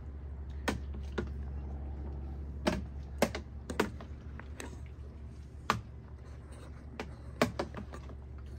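A metal spoon stirring wet ceviche in a glass baking dish, knocking and clinking against the glass in irregular sharp clicks, over a steady low hum.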